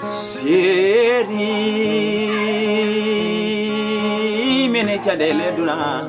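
Male voice singing to a strummed acoustic guitar, holding one long note with vibrato from about a second in until near the end.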